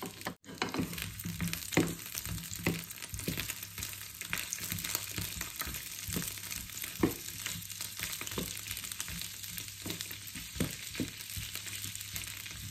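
Sausages sizzling in a little oil in a nonstick frying pan, with irregular knocks and scrapes of a wooden spatula turning them against the pan.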